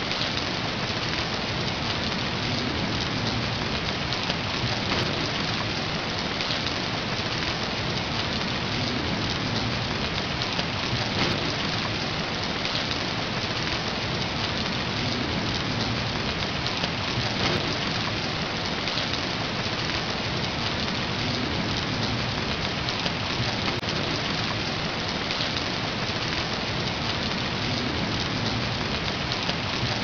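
Rain falling steadily, an even hiss with no let-up.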